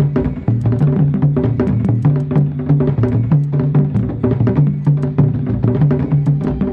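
Electronic music played live from a laptop and pad controller: rapid, even clicking percussion like a wood block over a low, repeating two-note bass pattern.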